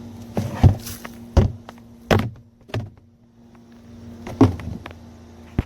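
Five or so sharp knocks and clunks of something being handled, over a steady low hum, ending in two quick clicks after which the hum stops suddenly.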